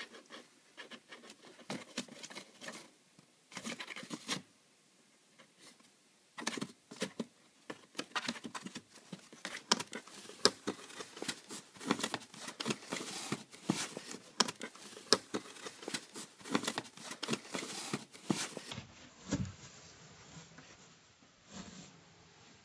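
Claws scratching and tapping on a cardboard box as a Sphynx cat paws through a slot in its side. The strokes are sparse at first, then quick and busy for about twelve seconds, ending with a few dull knocks on the box.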